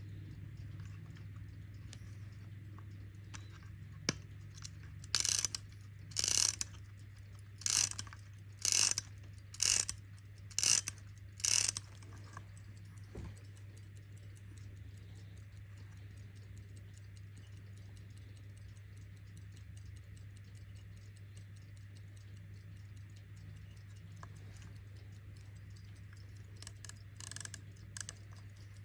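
Vintage Cyma mechanical alarm clock ticking faintly. About five seconds in come seven short bursts of ratchet clicking, roughly a second apart, as its winding ratchet is turned, with a few fainter clicks near the end.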